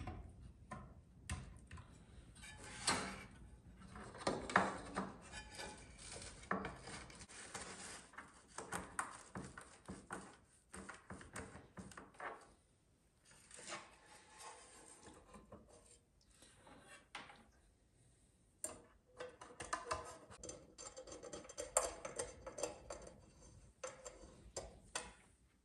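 Irregular clicks, light metallic knocks and rubbing as the metal case, heatsink board and fans of a small crypto miner are handled and fitted together, with a small screwdriver turning a screw into the case near the end.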